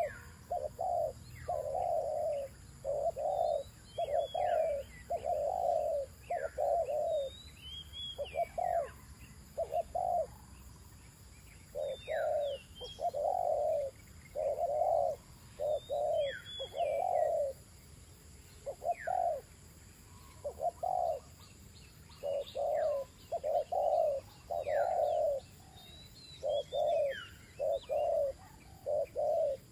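Spotted doves cooing over and over in short phrases of low, mellow coos. Between the coos, other birds give high, quick calls that slide downward in pitch.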